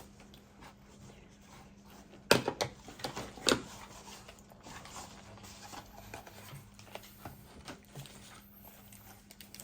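MRE plastic packaging being handled and cut open with scissors: a few sharp clicks and crinkles about two to four seconds in, then lighter rustling.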